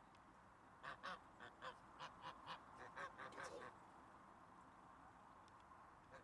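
Goose giving a quick run of about a dozen short honks, starting about a second in and lasting under three seconds.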